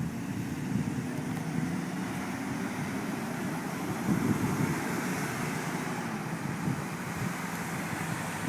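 Truck engine running steadily, with wind noise on the microphone.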